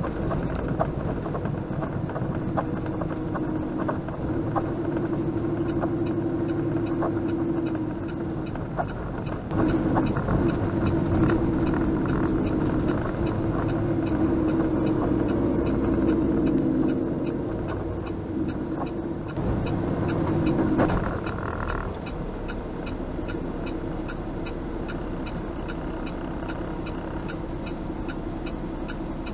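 Truck engine heard from inside the cab while driving, a steady drone whose pitch shifts in steps as the truck changes gear. About two-thirds of the way through it drops to a quieter, lower idle as the truck slows and stops.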